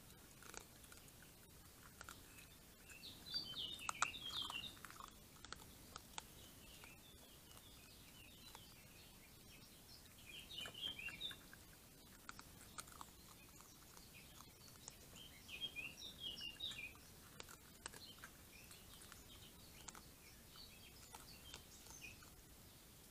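A songbird singing short phrases of high chirps, one phrase about every five to six seconds. Between and under them is faint crunching from a raccoon chewing dry kibble from a steel bowl.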